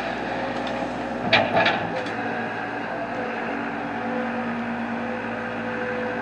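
Engine running steadily, with a short cluster of sharp knocks about a second and a half in, as dirt is loaded into a construction truck.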